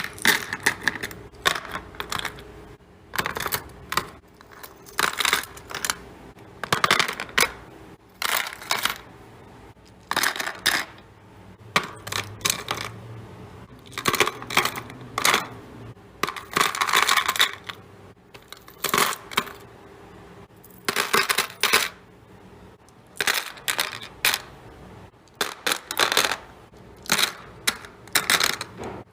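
Hard containers being set down and arranged one after another, with repeated sharp clinking and clattering in quick clusters every second or so. This is the sound of restocking a fridge or pantry.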